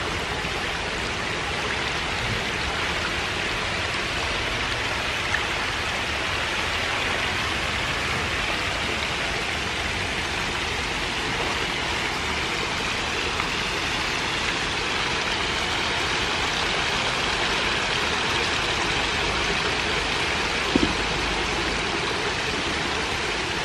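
A dense mass of baby catfish splashing and churning at the water's surface as they feed: a steady hiss of fine splashing.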